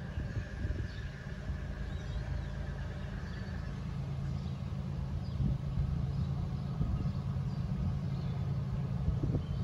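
Approaching diesel freight locomotives, heard as a low, steady engine rumble that slowly grows louder as the train nears.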